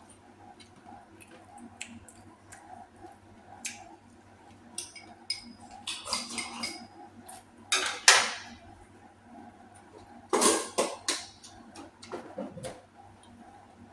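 Eating utensils clinking and scraping against bowls and dishes during a meal: scattered light clicks, with louder clatters about six, eight and ten and a half seconds in.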